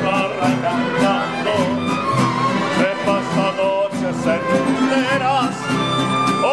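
Live mariachi band playing an instrumental passage between verses: violins carry a wavering melody over strummed guitar chords and a plucked guitarrón bass line.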